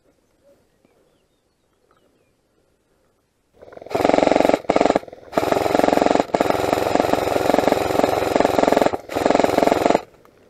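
Airsoft gun firing on full auto in several long bursts, starting about three and a half seconds in and broken by short pauses, loud and close.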